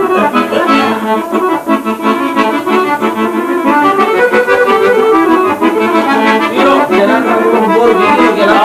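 Button accordion played in a traditional folk tune, with quick runs of notes over held chords.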